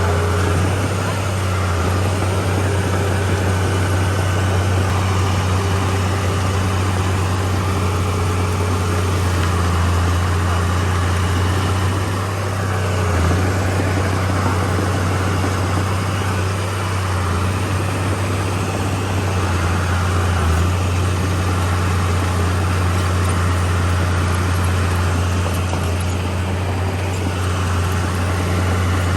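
Komatsu D31P bulldozer's diesel engine running steadily under working load, a constant low drone with broad mechanical noise over it.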